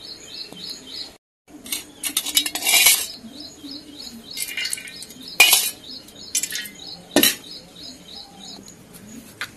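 Steel spoon clinking against a stainless steel bowl while oils are poured into it and stirred: a quick cluster of clinks, then a few single sharp clinks.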